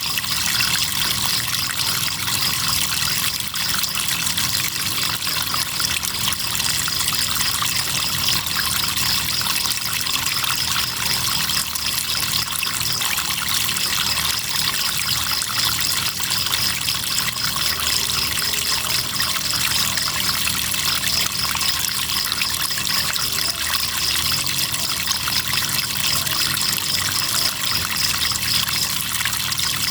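River water trickling and flowing steadily, with crickets chirping in a fast, even, high-pitched pulse above it.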